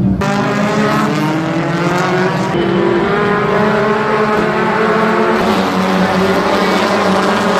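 Several race car engines running at once, their pitches climbing and sliding over one another as the cars drive by on the circuit.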